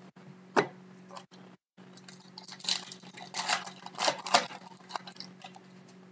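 Foil wrapper of a trading-card pack being torn open and crinkled by hand, a run of sharp crackles about two to four seconds in.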